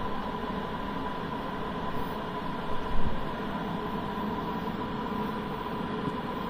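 Steady hiss with a thin, steady high tone through it, with no keyboard playing, and one short low bump about three seconds in.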